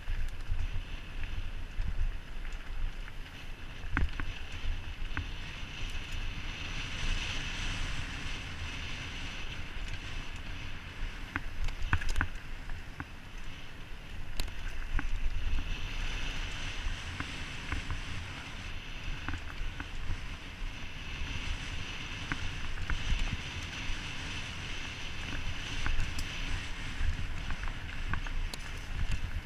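Mountain bike riding fast down a dirt and gravel trail: tyres rolling and crunching, wind buffeting the helmet microphone, and frequent knocks and rattles as the bike goes over bumps.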